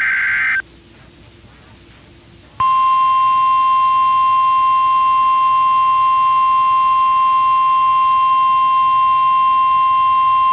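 NOAA Weather Radio EAS alert: the end of a SAME header data burst, a harsh warbling screech under a second long, then after a short pause the steady 1050 Hz warning alarm tone, held for about nine seconds and cutting off sharply. The tone signals that a new warning, here a flash flood warning, is about to be read.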